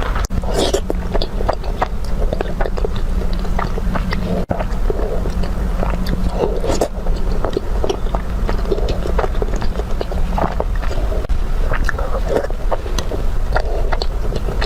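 Close-miked eating: biting and chewing food, a stream of many short irregular clicks and smacks over a steady low hum.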